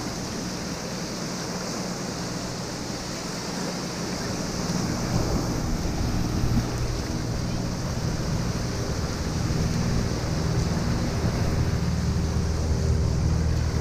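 Shallow surf washing and breaking, with wind buffeting the microphone. A steady low engine drone runs under it and grows louder about five seconds in.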